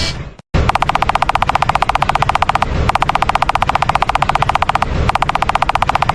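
A rapid buzzing rattle of about fifteen pulses a second, coming in three bursts of about two seconds each with short breaks between them, after a brief cut-out near the start.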